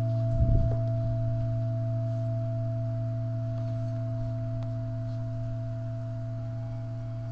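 Singing bowl sounding one steady, low, humming tone with a few fainter higher tones above it, slowly fading. There is a brief low knock about half a second in.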